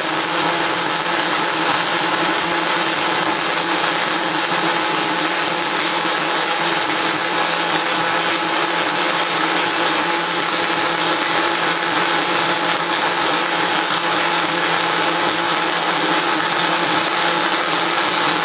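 MIG welding arc from a Motoman SSA-2000 welding robot laying a weave bead: a steady hissing, crackling arc noise with no break.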